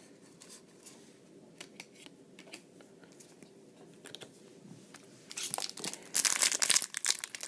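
Faint ticks of trading cards being handled, then about five seconds in a foil Pokémon booster pack wrapper is torn open and crinkled, loud and noisy.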